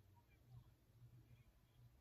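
Near silence: a very faint wood fire with a low, unsteady rumble and a few tiny crackles.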